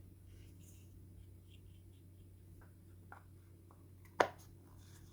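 Hands handling small resin model parts while gluing them: faint scattered clicks and taps, with one sharp click about four seconds in, over a low steady hum.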